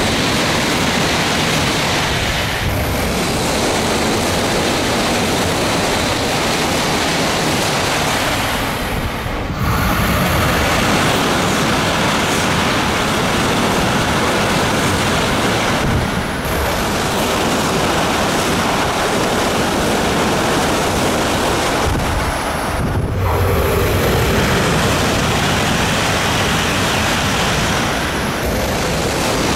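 E5- and H5-series Shinkansen bullet trains passing through a station at high speed at close range. A continuous loud rush of air and wheels on rail is broken only by a few brief dips as one pass gives way to the next.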